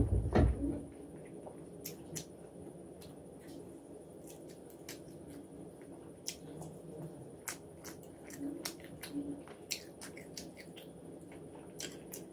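Close-miked eating sounds: wet chewing of fried rice and chicken with many short mouth clicks and smacks. A loud low thump comes right at the start.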